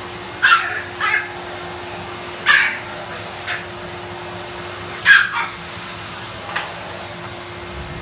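Pug puppy yapping at a vacuum cleaner: a string of about seven short, high barks at uneven intervals, the loudest about five seconds in.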